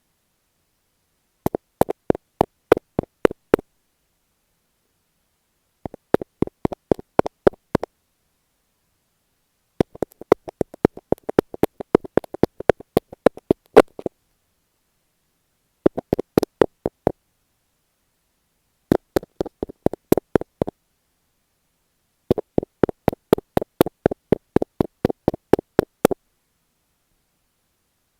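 Close-miked tapping on masking tape stuck over an earphone microphone: quick, crisp taps in bursts of one to four seconds, about six bursts, with dead silence between them.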